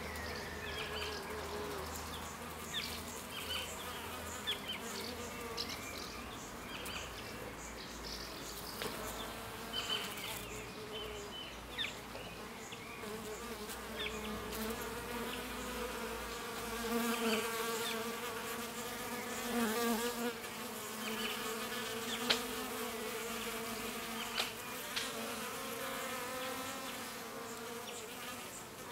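Honeybees buzzing in flight close by, a wing hum that swells and fades as bees come and go, loudest in the middle stretch, with scattered short clicks.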